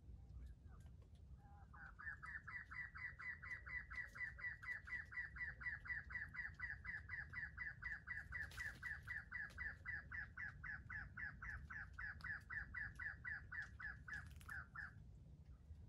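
Bird calling from out of sight: a fast, even run of short chirps, about four or five a second. It starts about two seconds in and goes on for some thirteen seconds before stopping.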